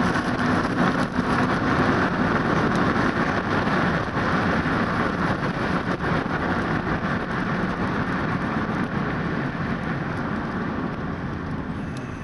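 Car driving on a wet road, heard from inside the cabin: steady engine and tyre noise with a hiss of wet pavement. It fades over the last couple of seconds.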